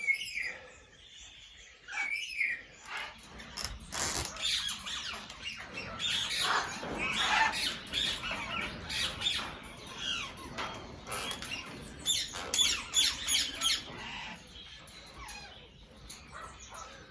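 Parrots calling and chattering: a busy run of short squawks and chirps, with scattered sharp clicks among them.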